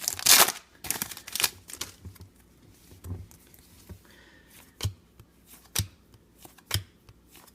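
Stiff trading cards being flipped through one at a time from a freshly opened pack. A brief rustle comes at the start, then a sharp card click about once a second.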